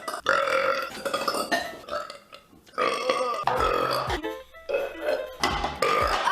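A woman burping: three long, loud, drawn-out burps in a row.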